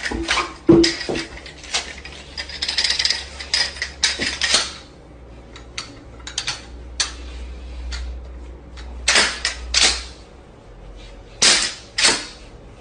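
A series of sharp cracks or pops at irregular spacing, more than a dozen. They come thick in the first few seconds, with the loudest about a second in, then sparser, with quiet gaps between them.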